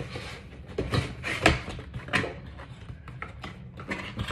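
A boxed toy figure set being handled: a handful of sharp knocks and rubs of the cardboard-and-plastic packaging, the loudest about a second and a half in.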